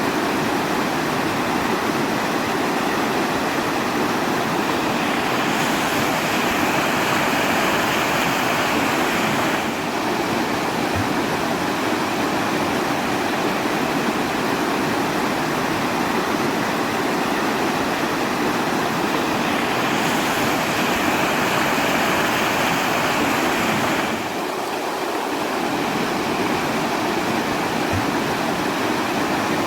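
Steady rush of running water, an even wash of noise. It brightens twice, from about five to ten seconds in and from about twenty to twenty-four seconds in.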